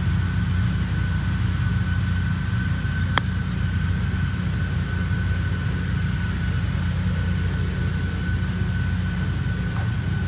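A 58-degree wedge strikes a golf ball once on a short pitch shot, a single sharp click about three seconds in. A steady low rumble runs underneath.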